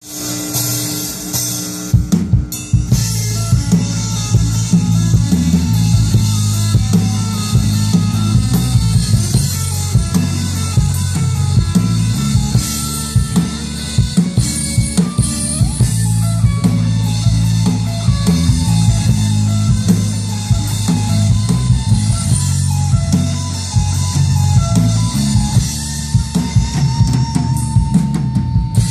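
Live rock band playing an instrumental passage: a drum kit keeps a steady beat under electric guitar and bass guitar, the drums coming in about two seconds in.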